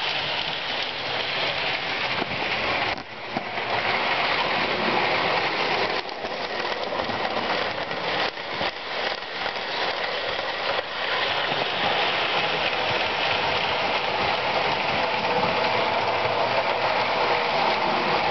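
Lionel O-gauge toy trains running on tinplate three-rail track: a steady rushing clatter of metal wheels and motors as cars pass close, with short clicks around the middle as wheels cross rail joints.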